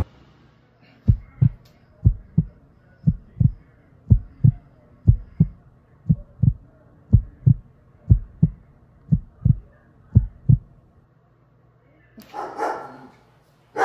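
Heartbeat sound effect: about ten slow lub-dub double thumps, roughly one a second, which stop about ten and a half seconds in. Near the end a louder, noisier sound starts.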